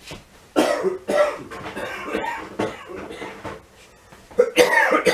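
A man coughing several times, in abrupt noisy bouts, the loudest near the end.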